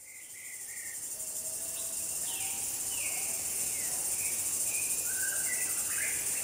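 Nature ambience that fades in from silence: a steady high chorus of insects with birds chirping in short, falling notes over it.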